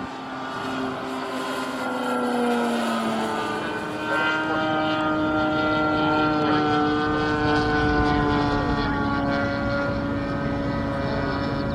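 Scale radial engine of a radio-controlled Boeing P-26 Peashooter running in flight. It grows louder about four seconds in, and its pitch slides slowly down as the plane passes.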